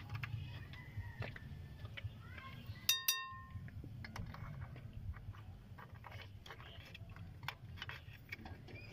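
Faint, irregular light metallic clicks and taps as small drum-brake parts are handled and fitted on the backing plate, over a low steady hum. About three seconds in there is a brief high tone.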